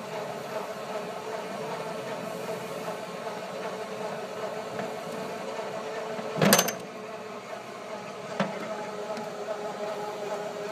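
Battery-powered cart motor whining steadily as it rolls across a concrete floor, with a loud clunk about six seconds in and a lighter knock about two seconds later.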